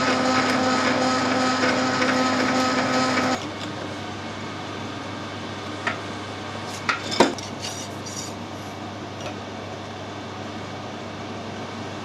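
Metal lathe running with a steady whine while drilling out the end of a steel tube, switched off about three seconds in. A few light metal clinks and knocks follow, the loudest a sharp knock a little past the middle.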